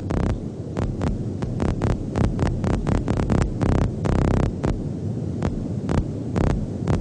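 Low-frequency pulsed sound played underwater through a loudspeaker: a deep hum broken by rapid, irregular pulses, several a second. It imitates the low sounds, around 40 Hz, that distressed fish give off, which draw sharks in.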